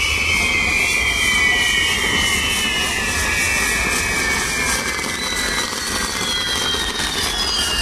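Spinning fire wheels on a pyrotechnic castle (castillo) giving a steady rushing hiss, with several high whistles that slowly fall in pitch.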